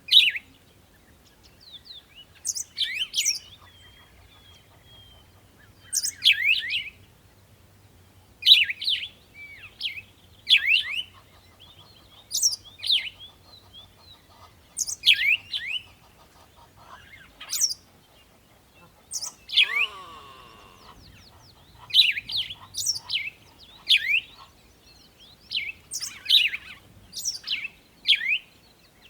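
A bird chirping over and over: short, sharp downward-sweeping chirps, singly or in quick clusters, every second or two.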